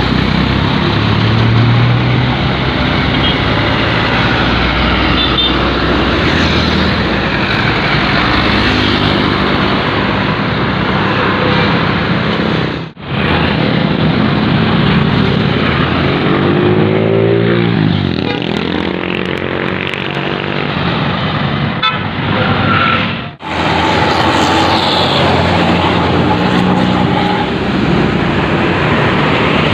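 Tour buses passing on a road and sounding Basuri telolet horns, the multi-tone musical air horns of Indonesian buses, over engine and traffic noise. The sound drops out suddenly twice, near the middle and about two-thirds through.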